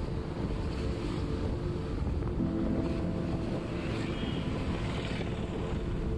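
Wind buffeting the microphone over a steady vehicle rumble, with a brief pitched tone about two and a half seconds in.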